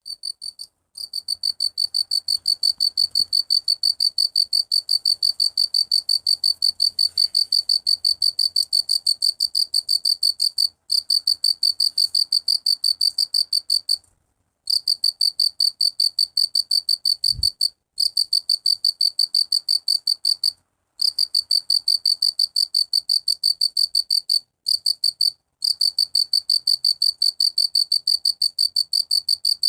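Cricket chirping: a fast, even train of high-pitched pulses, broken by short pauses every few seconds.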